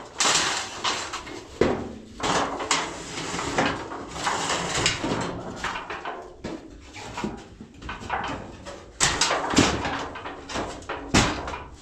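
Irregular knocks, bangs and scraping from hand work with building materials and tools, the loudest knocks near the end.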